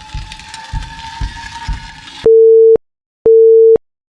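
Low, uneven rumbling with a faint steady tone, then electronic countdown beeps begin about two seconds in: two identical half-second pure-tone beeps, one second apart.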